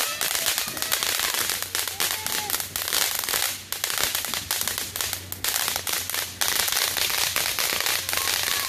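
Ground fountain firework spraying sparks, with a dense crackle of rapid small pops that eases briefly about three and a half and again about five and a half seconds in.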